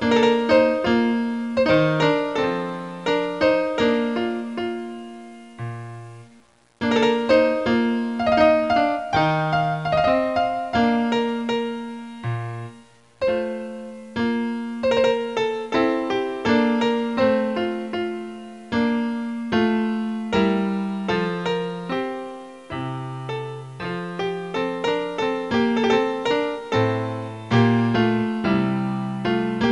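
Solo piano background music, a steady run of single struck notes that ring and fade, pausing briefly twice.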